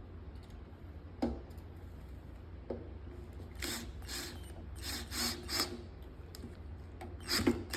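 Parts being handled and fitted onto a machine by hand: scattered clicks and knocks with rubbing in between, over a low steady hum.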